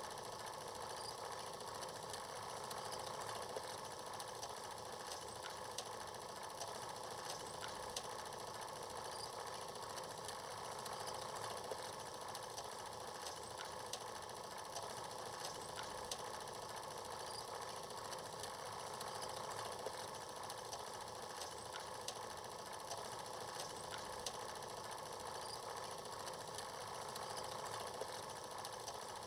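Film projector running: a steady mechanical whirring rattle with scattered faint clicks.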